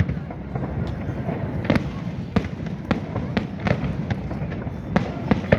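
Fireworks show shells bursting in quick irregular succession: sharp bangs about two a second over a continuous low rumble of overlapping reports.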